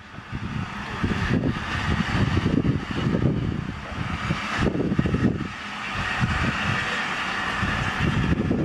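LNER D49 steam locomotive Morayshire moving slowly along the platform: a steady hiss over an uneven low rumble.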